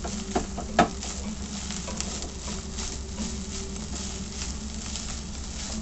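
Boiled rice, egg and vegetables frying in a hot pan: a steady sizzle with light crackle over a low hum. There is one sharp knock a little under a second in.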